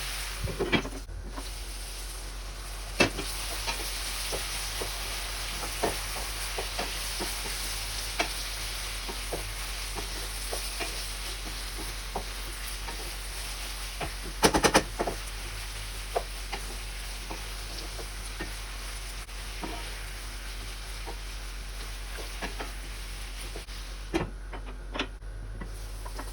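Bottle gourd sabji sizzling in a pan, a steady frying hiss, with a utensil scraping and knocking against the pan now and then as it is stirred, a burst of louder stirring about halfway through. The sizzle briefly drops away near the end.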